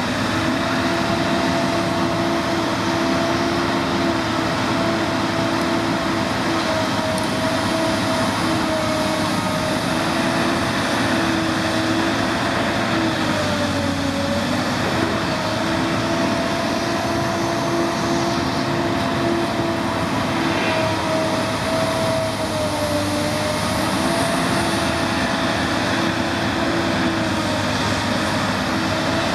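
Excavator's diesel engine running steadily under work with a droning, whining tone, its pitch sagging briefly twice, around the middle and again about two-thirds of the way through.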